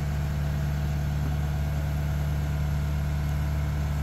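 Diesel engine of a Tadano ATF 100G-4 mobile crane running steadily as it holds a suspended catamaran, a constant low drone with no change in speed.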